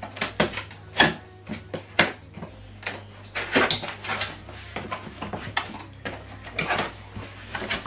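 Hands opening the top of a cardboard box: the flaps scrape and rustle, with many scattered clicks and knocks and a couple of short rustling stretches.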